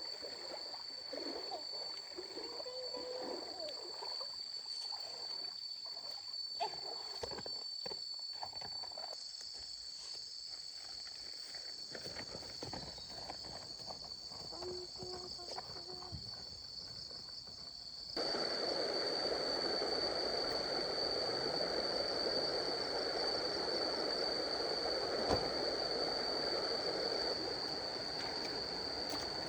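Running stream water under a steady high-pitched whine. About 18 seconds in, the water abruptly becomes louder and fuller.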